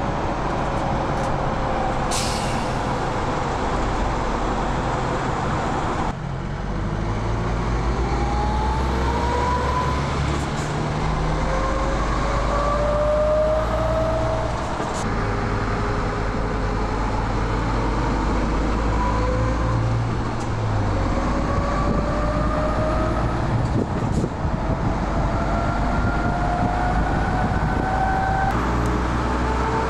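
MAN TGX 18.470 truck's six-cylinder diesel engine pulling a semi-trailer: its pitch climbs as it accelerates, then drops back at each gear change, several times over, above a steady low rumble. A brief hiss sounds about two seconds in.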